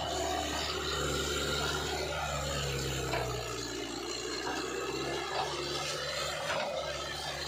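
Mahindra 575 DI tractor's diesel engine labouring under a heavy trailer load as the front wheels lift, a steady low drone whose tone changes about halfway through.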